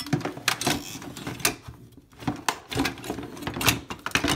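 Metal hand tools clattering and knocking against each other as they are rummaged through in a toolbox: a busy run of irregular knocks and rattles that stops near the end.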